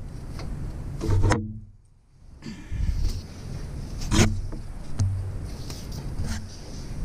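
Socket on a long extension being worked on a bolt: metal rubbing and scraping, with a louder scrape about a second in and sharp metallic clicks about four and five seconds in, over a steady low hum.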